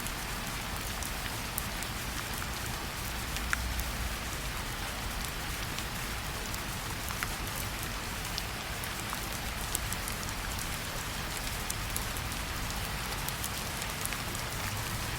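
Steady rainfall, with scattered sharp ticks of single drops landing.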